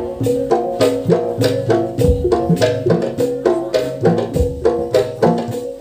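Traditional percussion-ensemble music accompanying a Madurese pencak silat performance. Sharp drum and wood-block-like strokes keep a quick, steady beat under a repeating melody of pitched notes, with an occasional deep drum hit.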